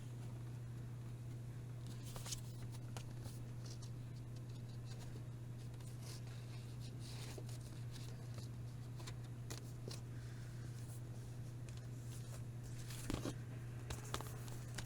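Hands handling packaging and record releases: scattered rustles and light clicks, with a louder cluster of clicks near the end, over a steady low hum.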